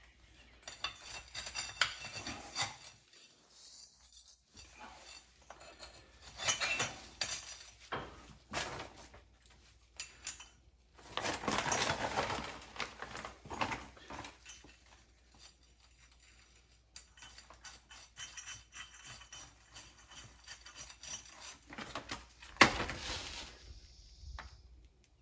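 Metal undercarriage rollers and parts clinking, scraping and rattling as they are handled and checked for wear, in irregular bouts with one sharp clank near the end.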